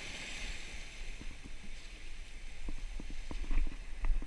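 Wind rumbling on the microphone, with a string of light knocks and scuffs from handling the landing net and gear that grow busier about halfway through.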